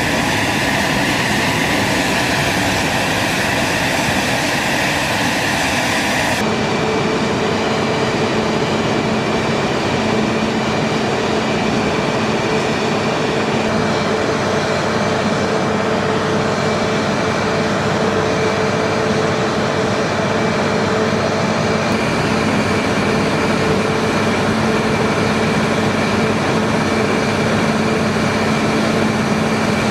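Steady drone of flight-line machinery running, a hum with a higher whine held over it, most likely the ground power cart or auxiliary power supplying the parked helicopter. The sound changes abruptly about six seconds in, then runs on evenly.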